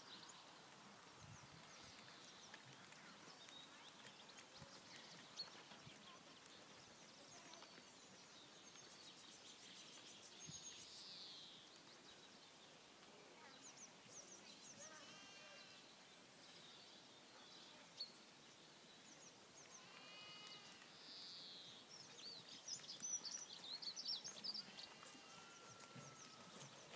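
Near silence outdoors with faint, distant animal calls: two wavering calls near the middle and scattered high chirps, busiest near the end.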